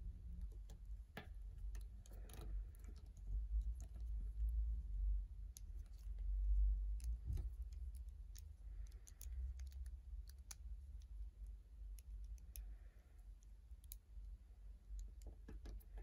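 Plastic joints of a hand-held action figure clicking now and then as it is posed, with scattered sharp clicks at irregular times. Underneath is a low rumble of handling noise that swells for a few seconds in the middle.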